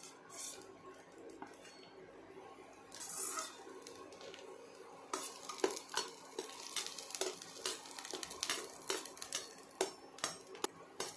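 A perforated steel skimmer scrapes and clinks against a stainless steel kadai as roasted red chillies and garlic are scooped out of the oil. There is a brief scrape about three seconds in, then a run of light metal taps and clinks from about five seconds on.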